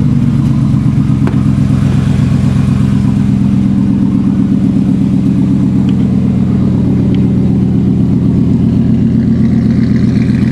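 Chevrolet Silverado pickup's engine idling steadily, heard close to its dual exhaust tips.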